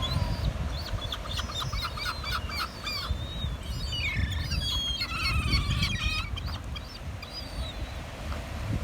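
Several gulls calling: a quick run of short calls from about one to three seconds in, then longer calls that swing up and down in pitch around four to six seconds in. Under them runs the steady low wash of surf.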